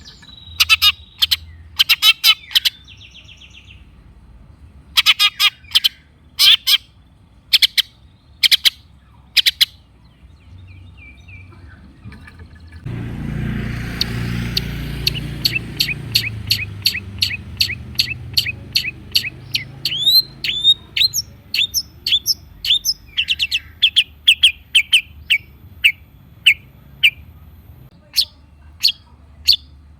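Long-tailed shrike (cendet) calling: clusters of sharp, harsh calls. Partway through, a long run of quick chirps comes at nearly two a second, over a rush of low rumbling noise that swells and then fades.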